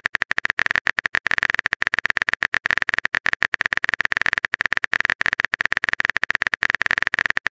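Phone-keyboard typing sound effect: a rapid, uneven run of short clicks, one per letter as a text message is typed out.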